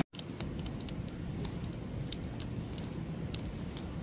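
Wood fire burning in a metal fire pit, crackling with scattered sharp pops over a steady low rumble.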